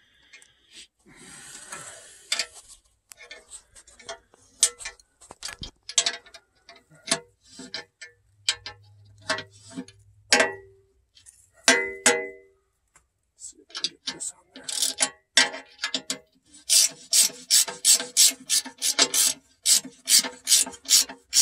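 Ratchet wrench clicking as the bolts on an excavator final drive's cover plate are backed out. The clicks come in short runs, then in a steady, louder run of about three a second near the end.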